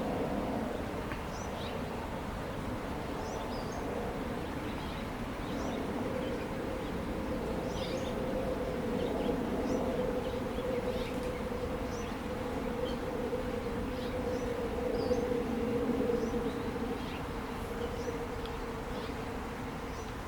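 A steady buzzing drone, somewhat louder in the middle, with faint short high chirps scattered over it.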